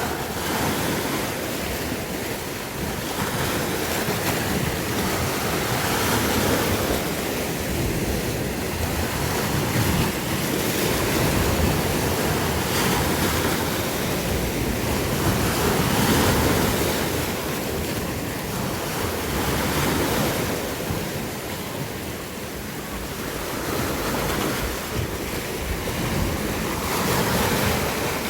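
Sea waves breaking and washing in, swelling and ebbing every few seconds, with wind buffeting the microphone.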